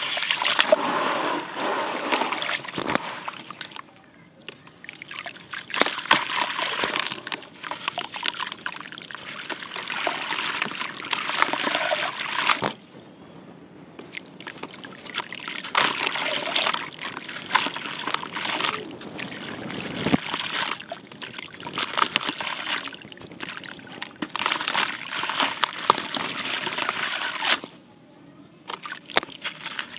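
Wet gritty clay being squeezed and crumbled by hand in a bucket of muddy water: splashing and sloshing with gritty crumbling. It comes in bouts of several seconds, broken by brief lulls.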